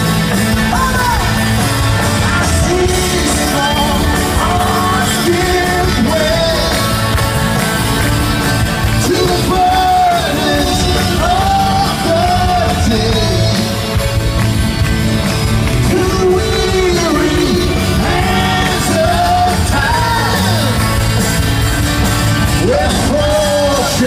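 Live rock band playing through a stadium PA, with drums, electric guitars and piano under a wavering sung melody line. It is heard from among the crowd.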